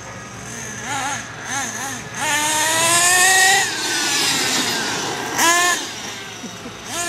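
RC car's motor whining: a couple of short throttle blips, then a long rising whine as it accelerates, and another short, loud burst of whine about five and a half seconds in.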